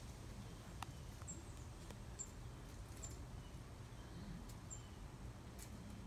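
Faint outdoor birdsong: four short, very high chirps spread over a few seconds against a low steady background rumble, with one sharp click a little under a second in.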